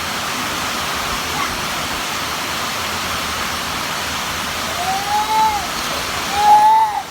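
Heavy rain pouring steadily, with a short high voice call rising and falling twice in the second half.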